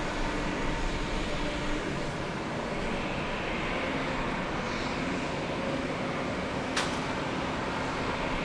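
Steady airport apron noise: a continuous engine and machinery hum from aircraft and ground equipment, with faint steady tones in it. A single sharp click comes about seven seconds in.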